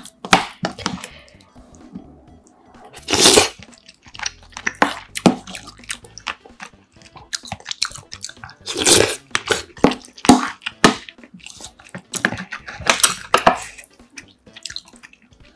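Close-miked eating: a metal spoon clinks and scrapes in a ceramic bowl as soup-soaked rice is stirred, then wet chewing and mouth sounds, with short clicks of spoon and chopsticks throughout.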